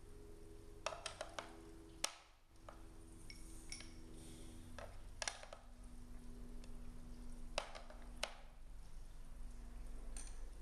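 Red-and-blue counting rods clicking and knocking against a wooden peg board and against each other as they are picked up and set into its holes: a scattering of sharp clicks in small clusters, the loudest about two seconds in, over a faint steady hum.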